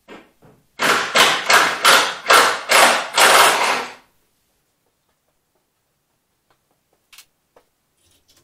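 Tool work on a car's stripped front-end metal: about seven short, loud, rasping strokes in quick succession, roughly two or three a second, over about three seconds, then a few faint knocks near the end.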